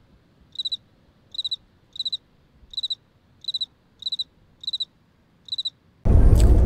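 A cricket chirping: about eight short, trilled chirps at a high pitch, roughly evenly spaced, over near silence. Near the end a loud low rumble cuts in suddenly.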